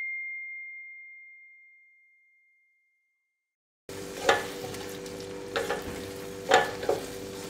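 A single chime tone fading away over about three seconds. After a moment of silence, a wooden spatula stirs noodles in a non-stick pan over a faint sizzle, with about four short scraping strokes.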